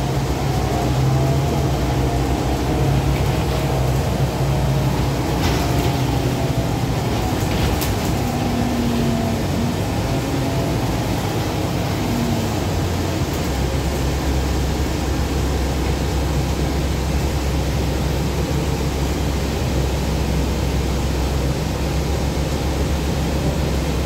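Cabin sound of a 2012 Gillig Advantage low-floor transit bus under way: a steady engine and drivetrain drone over road noise, with a few faint rattles. About halfway through, the engine note drops lower.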